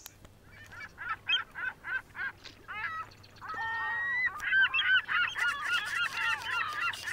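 Honking, goose-like bird calls. A quick string of short calls at about four a second is followed by one longer call, then two or more voices call over each other for the second half.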